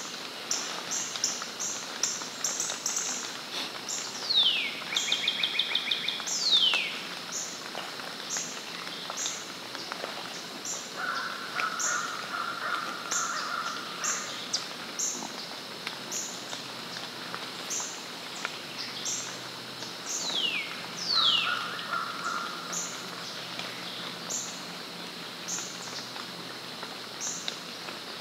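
Woodland birds calling: a steady series of short high chirps about twice a second, with a few quick downward-sliding whistles and a brief fast trill.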